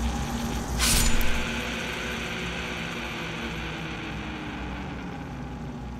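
Low steady mechanical rumble of an execution machine running, with a sudden harsh hissing burst about a second in that fades into a steady wash.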